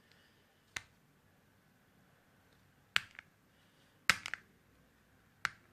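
A few sharp, separate clicks and taps, the loudest a quick cluster of three a little after four seconds in: hands handling the UE Boom 2 portable speaker.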